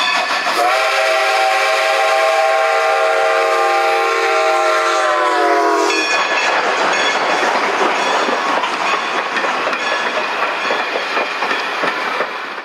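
Strasburg Rail Road No. 90, a 2-10-0 steam locomotive, blows its chime steam whistle in one long blast of about five seconds that dips slightly in pitch as it ends. The tender and passenger coaches then roll past with steady rumbling and clicking of wheels over the rail joints.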